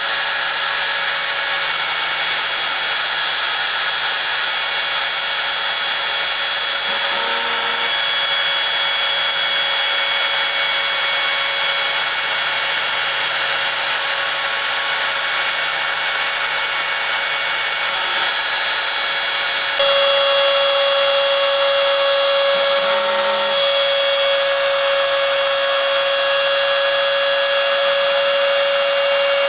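Home-built CNC router running as its spindle and small end mill carve hard foam: a continuous machine whine with several steady tones. About twenty seconds in the sound gets a little louder and a strong steady mid-pitched tone joins it.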